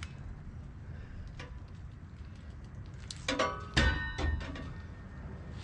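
Metal exhaust pipe being handled and knocked together: a few light ticks, then a cluster of clanks with a metallic ring about three to four seconds in, over a low steady hum.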